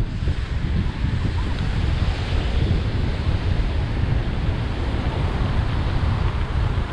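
Ocean surf washing steadily on a beach, with wind buffeting the microphone in a low, fluttering rumble.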